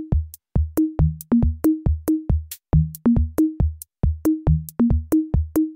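Background electronic music: a drum-machine beat of short, punchy low notes, about three to four a second, hopping between a few pitches in a bouncy pattern.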